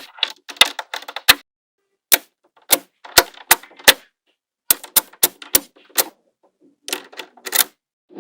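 Small magnetic balls clicking sharply as they snap onto one another, in irregular runs of single clicks with short pauses between.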